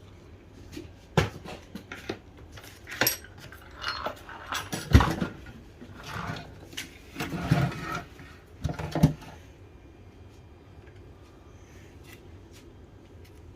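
Irregular clinks, knocks and clatter of hard objects being handled and set down, loudest about five seconds in. It stops after about nine seconds, leaving only a low steady hum.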